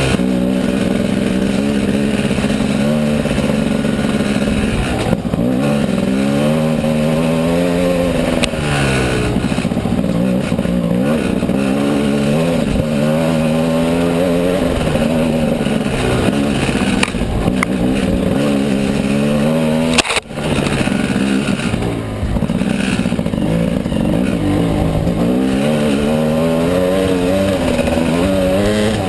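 Gas Gas EC300 300cc single-cylinder two-stroke dirt bike engine, revving up and down again and again as the rider works the throttle over rough trail. It drops out briefly about two-thirds of the way through.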